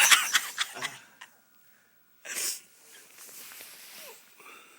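A person's loud breathy exclamation tailing off, then, about two seconds in, a short sharp hiss of breath.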